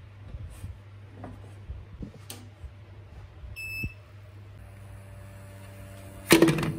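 Faint handling clicks, then a 3D printer powering up: a single short electronic beep about three and a half seconds in, followed by a steady electrical hum with a high whine. A brief loud clatter near the end.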